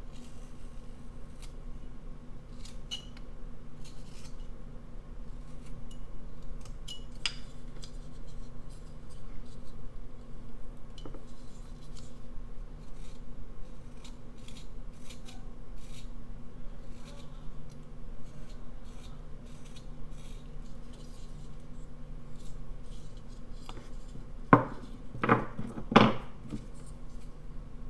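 Carving knife paring a basswood figure: a run of small slicing and scraping clicks as thin shavings come off, with three sharp knocks a few seconds before the end.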